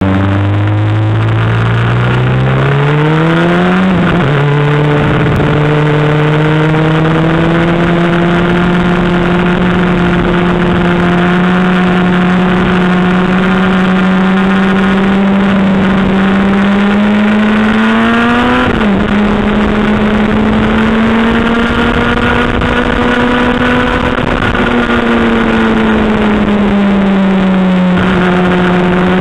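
Honda CBR600 sport bike's inline-four engine heard onboard: revs rising as it pulls away, a gear change about four seconds in, then running at fairly steady revs, with a brief dip and climb in pitch around the middle.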